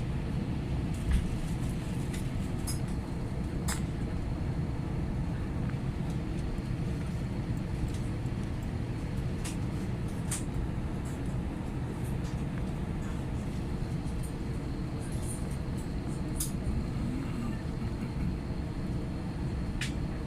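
Steady low rumble and hum inside an Airbus A320 cabin, with a few brief sharp clicks scattered through it.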